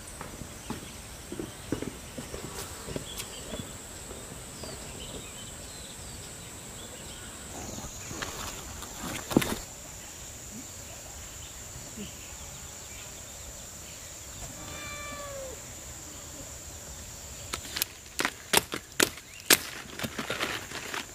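Garden ambience: a steady high-pitched insect drone with faint scattered bird chirps. Near the end, a quick run of sharp snaps and rustles as broccoli plants are grabbed and their leaves broken off by hand.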